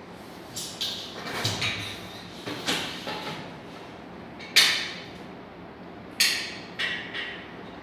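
Irregular knocks and scraping clatters of hard parts being handled, about six spread over several seconds, the loudest about four and a half seconds in.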